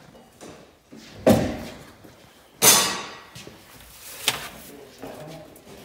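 Loose car parts being pulled out of the car and set down: two heavy thuds about a second and a half apart, the second the loudest, then a sharper knock a couple of seconds later.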